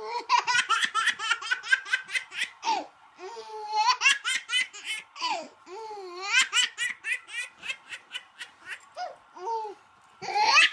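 A baby laughing hard in several bouts of quick, pulsing laughs, with a few high squeals that rise in pitch.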